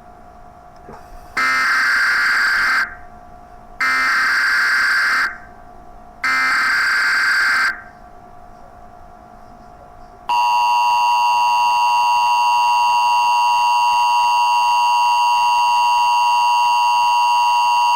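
Emergency Alert System opening: three bursts of SAME header data tones, each about a second and a half, followed about ten seconds in by the steady two-tone EAS attention signal, the alert tone that announces a warning, here a tornado warning.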